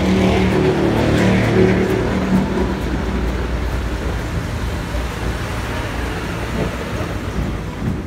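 Steady low background rumble and hiss, of the kind road traffic makes, with a low pitched hum in the first couple of seconds that then fades.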